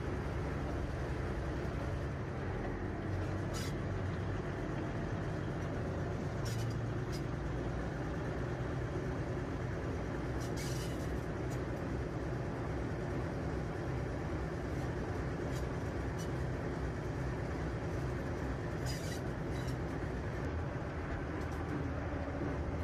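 Diesel shunting locomotive running steadily along the line, heard from aboard: a constant engine and track rumble, with a few brief sharp high sounds now and then.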